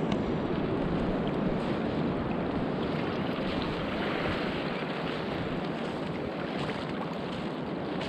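Steady wind noise on the microphone over the soft wash of small waves at the water's edge.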